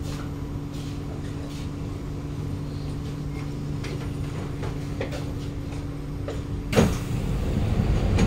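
Kawasaki Nippon Sharyo C751B train standing at the platform with a steady electrical hum. About seven seconds in, its passenger doors open with a sudden loud rush, and louder noise follows through the open doorway.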